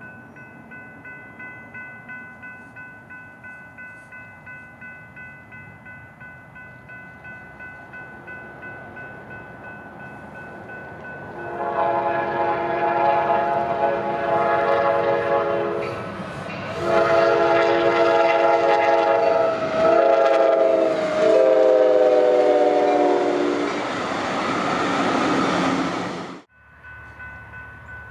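Railroad crossing bell ringing steadily. Then a locomotive horn sounds the long-long-short-long grade-crossing signal, its pitch dropping as the locomotive passes, over the noise of the train. The sound cuts off suddenly near the end.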